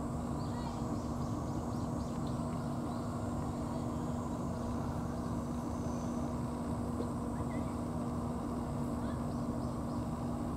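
A steady machine hum: one constant low droning tone over an even rumble, unchanging in level. A few faint short high chirps sound in the first couple of seconds.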